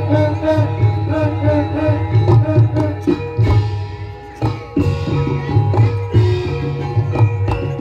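Live Javanese kuda lumping (jaran kepang) accompaniment: hand drums beating a steady driving pattern under gamelan-style metallophone notes and a short, repeated melodic figure. The music eases off briefly around the middle, where a metallic shimmer comes through, before the drums pick up again.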